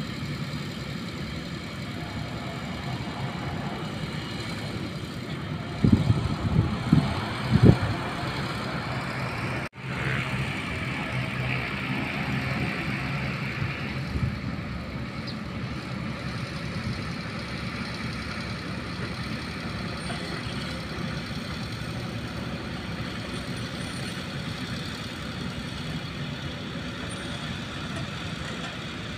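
Diesel engine of a concrete mixer truck running steadily, with a few loud thumps about six to eight seconds in.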